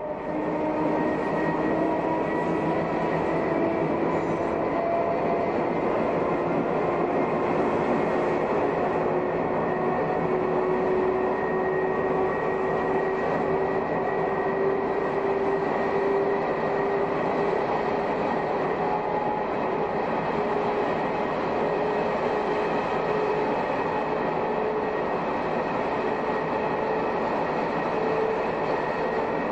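Shin-Keisei 200-series electric train with nose-suspended (tsurikake) traction motors running, heard from the cab: the motor and gear whine rises slowly and steadily in pitch as the train gathers speed, over constant wheel-on-rail running noise.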